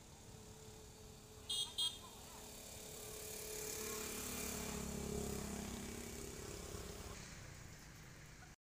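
A motor vehicle passing on a nearby road, growing louder to a peak about five seconds in and then fading away. Shortly before it, two short high-pitched chirps.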